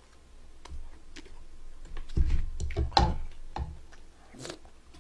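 A person eating with a spoon close to the microphone: chewing and wet mouth sounds with scattered clicks, loudest about two to three seconds in, and a brief slurp-like sound near the end.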